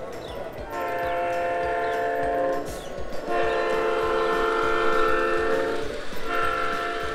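Large-scale model circus train's onboard sound unit sounding a multi-tone train horn: two long blasts, then a third starting about six seconds in.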